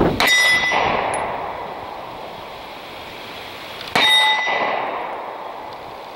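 Two shots from a Springfield Armory Ronin EMP 9mm subcompact 1911 pistol, about four seconds apart, each followed at once by a hit steel target ringing with clear high tones that fade over a second or so.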